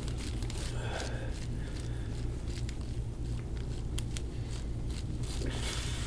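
Faint wet clicks and squelches of oiled skin worked under a fist during deep-tissue massage, over a steady low hum.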